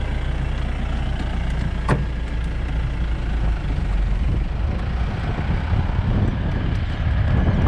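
Open safari jeep driving along a dirt track: steady engine and road rumble, with one sharp knock about two seconds in.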